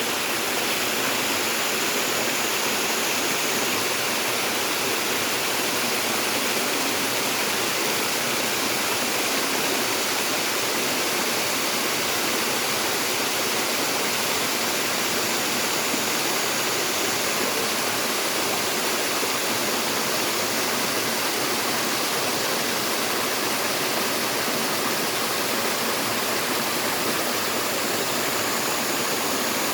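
Mountain valley stream in full flow, water rushing and gushing in a steady, unbroken roar-free rush.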